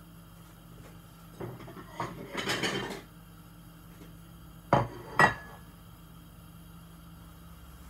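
A cooking utensil clattering against a frying pan for about a second and a half, then two sharp knocks half a second apart, the second with a brief metallic ring.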